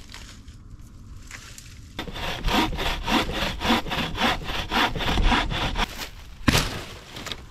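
Wooden-framed bow saw cutting through a log in quick back-and-forth strokes, about five a second. The sawing starts about two seconds in and lasts about four seconds, followed by a single sharp knock.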